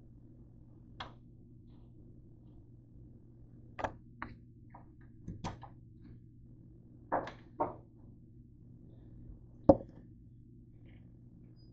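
Scattered clicks and knocks of a kitchen utensil being handled at a counter, two close together about seven seconds in and the loudest knock near the end, over a faint steady low hum.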